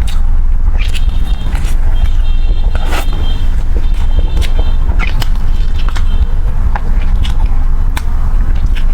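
Close-miked chewing of 'tiger skin' food: irregular mouth clicks, a few to several a second, over a steady low rumble.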